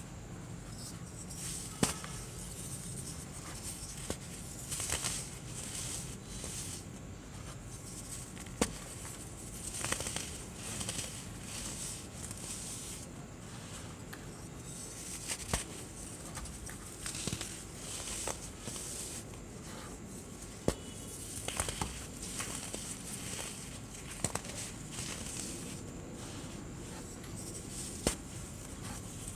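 White baking soda being crushed and crumbled: irregular crunching with a sharp crack every few seconds.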